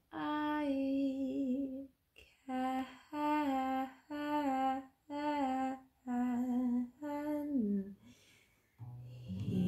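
A woman humming a short wordless melody in a string of held notes with brief breaks, the last note sliding down. About nine seconds in, an acoustic guitar chord is strummed and rings.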